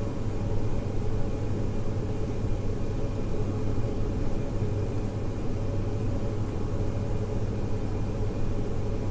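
Steady low rumbling ambient noise, even throughout, with no distinct bird calls or other separate events.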